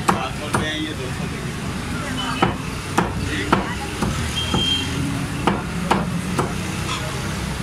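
Butcher's knife chopping chicken on a thick wooden chopping block: about a dozen sharp knocks at an irregular pace, over a steady low background rumble.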